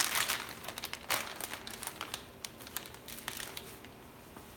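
Plastic bag crinkling and rustling as it is handled. It is loudest at first and dies away, leaving a few separate light ticks.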